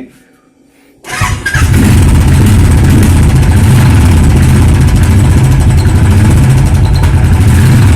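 Royal Enfield motorcycle engine starting about a second in, then running at a steady idle. No gear knock or chain rattle comes through, the rear hub's cush drum rubbers having just been replaced to cure that noise.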